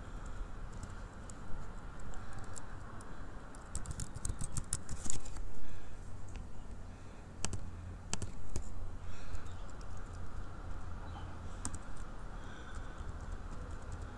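Typing on a computer keyboard: a quick run of key clicks, then scattered single clicks, over a low steady hum.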